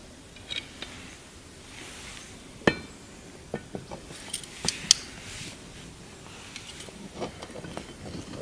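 Metal tongs setting lit charcoal briquettes onto a cast-iron Dutch oven lid: irregular clinks and light knocks of tongs and coals on the iron, two of them sharper and louder, about a third and just over halfway through.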